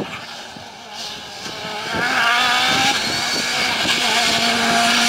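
Rally car engine under hard acceleration as it approaches: fairly quiet with some crackling at first, then from about two seconds in much louder, its note rising through the revs before settling into a high steady pitch.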